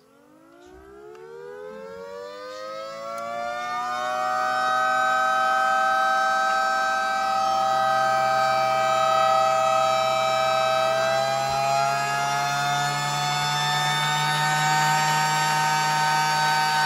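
Mini 3D-printed Thunderbolt 1003 model siren winding up as its chopper spins up against the stator, with no horn fitted. Several tones rise together in pitch over about four seconds, then hold a steady wail, and a low steady hum joins about seven seconds in.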